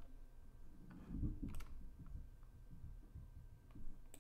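A few faint computer mouse clicks, one about a second and a half in and another near the end, over a low steady background hum.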